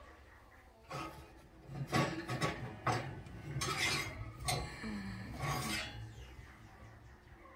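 Lodge cast iron skillets being handled on metal oven racks, with repeated scraping and clinks of the heavy pans against the wire racks. The sounds come in a run of short bursts from about a second in and fade out near the end.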